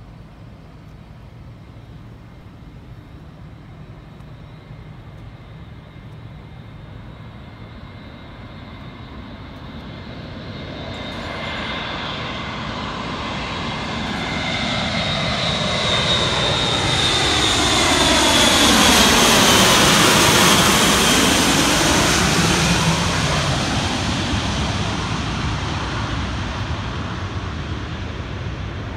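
Airbus A400M military transport's four TP400 turboprop engines as it flies low overhead on landing approach. It is faint at first, grows louder from about a third of the way in, and is loudest about two-thirds through. It then fades, with its high whine dropping in pitch as it passes.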